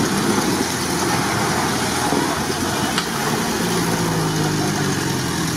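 Off-road 4x4's engine working under load as the vehicle climbs a steep dirt bank, tyres spinning and throwing dirt; a steady engine note comes through more clearly about halfway in.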